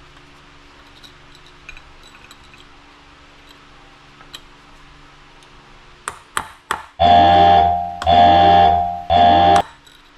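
Three short, loud blasts of synthesized electronic music, held chords with rising sweeps, starting about seven seconds in, each cut off sharply. Before them, a faint steady hum with light ticks, then a few sharp clicks.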